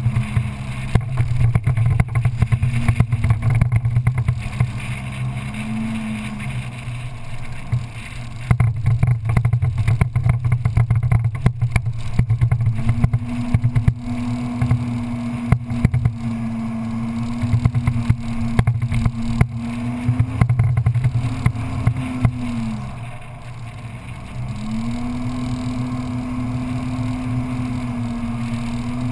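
Engine of an open off-road vehicle pulling over sand, its pitch holding steady and then dropping as the throttle eases, about six seconds in and again near twenty-two seconds, before climbing back. Frequent knocks and rattles from the rough ground ride over a steady low rumble.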